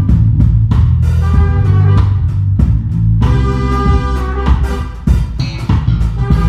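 A live band playing: electric guitar and drum kit over a strong low bass line, with drum hits on a steady beat.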